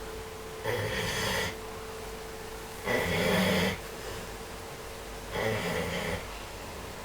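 A person snoring, asleep under a massage: three snores, each just under a second long, about two and a half seconds apart.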